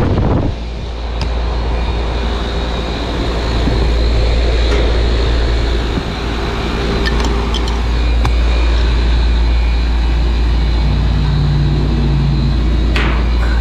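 Newly installed Carrier 4-ton air-conditioner condensing unit running steadily just after startup: a compressor and condenser-fan drone with air rushing past.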